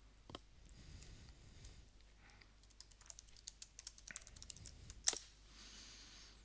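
Computer keyboard typing, faint: a few scattered keystrokes, then a quick run of key presses about three seconds in, ending with one louder click about five seconds in.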